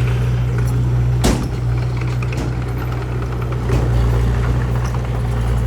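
Heavy diesel engine of earth-moving machinery running steadily, with a single sharp clank about a second in.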